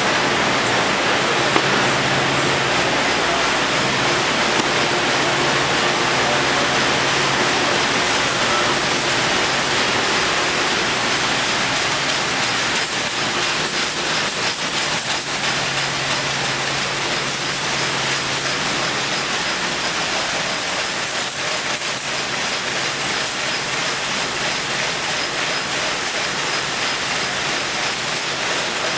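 Steady machinery noise of plastic bag-making machines on a factory floor: an even hiss over a low hum.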